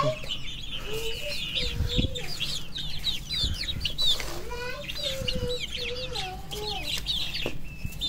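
Chickens clucking in drawn-out, wavering calls, over a busy chatter of quick high chirps from small aviary birds.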